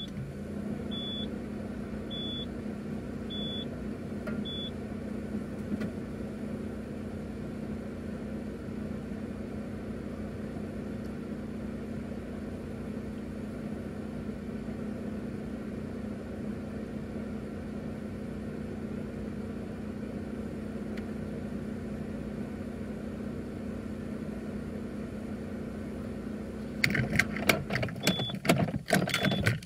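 A car's dashboard warning chime beeps about five times, roughly a second apart, then stops. A steady low hum from the stationary car with its ignition on and engine off carries on. Near the end come a few sharp clicks and knocks.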